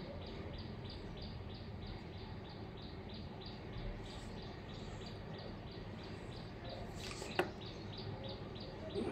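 An insect chirping steadily in the background, about five short high chirps a second, with a single sharp click about seven seconds in.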